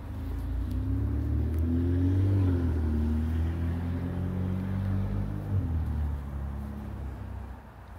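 A motor vehicle driving past on the street, its engine note swelling to its loudest about two seconds in, shifting in pitch, and fading away after about six seconds.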